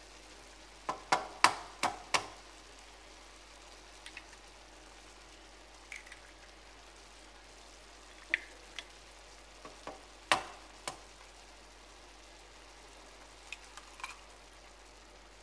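Tomato sauce sizzling in a frying pan while eggs are cracked into it: sharp cracks and taps of eggshells breaking, a cluster about a second in, another around ten seconds in, and a few single taps between.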